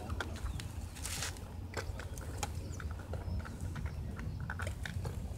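Low wind rumble on the microphone, with a brief hiss about a second in and scattered small clicks as a spinning rod is cast and its reel handled.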